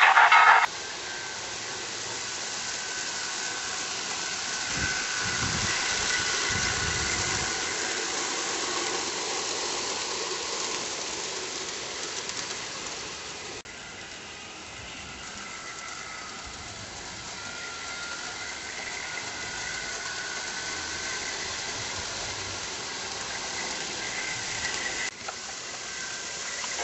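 O gauge model trains running on an outdoor garden track: a steady hiss with a faint, wavering whine over it.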